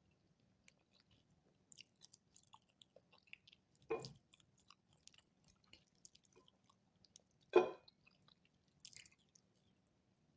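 A person chewing food, with soft scattered mouth clicks and crunches and two louder short knocks a few seconds apart.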